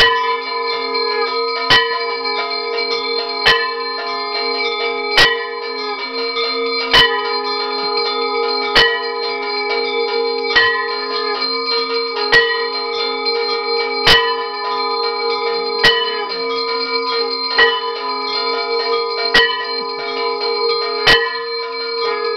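Puja bells ringing without pause, several metallic tones sounding together. A sharper stroke repeats very evenly about every second and three-quarters.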